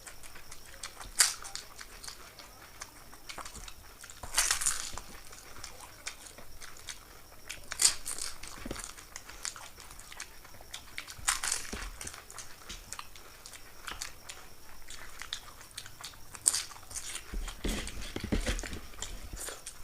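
Crisp dahi fuchka shells (puri filled with yogurt) being bitten and chewed quickly, with a sharp crunch every few seconds between quieter wet chewing.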